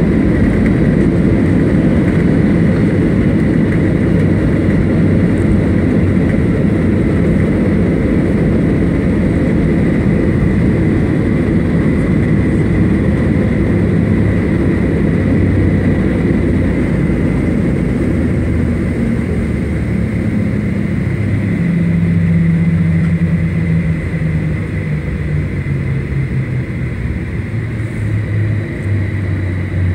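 Cabin noise of a Boeing 737 during the landing rollout: loud jet engine roar and rumble from the wheels on the runway. In the last few seconds the engine pitch falls and the noise eases as the plane slows.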